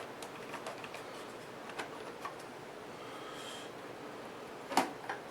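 AHM C-Liner model locomotive running on a test track: a faint steady running sound with light scattered clicking, and one sharper click near the end.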